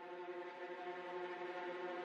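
Background music: a sustained ambient drone of several held tones, slowly swelling in loudness.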